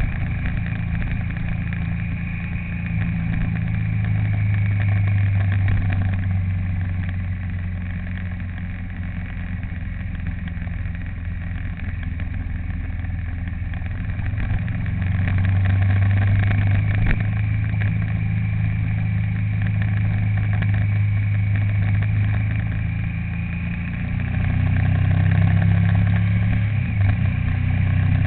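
Motor vehicle engine running steadily while driving, a low hum that grows louder a little past halfway and again near the end as the engine takes more load.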